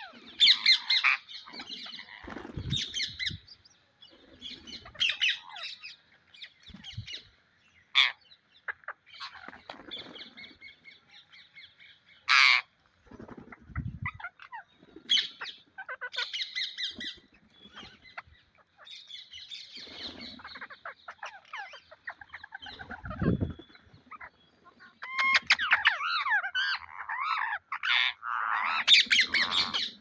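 A flock of rose-ringed parakeets squawking and screeching in many short, shrill calls as they feed, the calls densest near the end. A few low thumps close to the microphone are mixed in.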